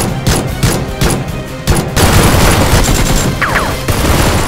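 Action soundtrack music with a driving beat, mixed with rapid gunfire that grows denser and louder about two seconds in.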